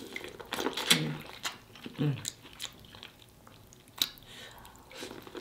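Close-miked mouth sounds of a person eating a sauce-covered seafood boil by hand: wet smacking, sucking and chewing. Short hums come about one and two seconds in.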